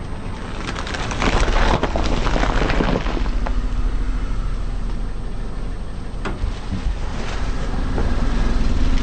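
Car engine running with a steady low rumble while a tyre rolls over and crushes objects, giving bursts of crackling and crunching about a second in, a sharp crack a little past the middle, and more crunching near the end.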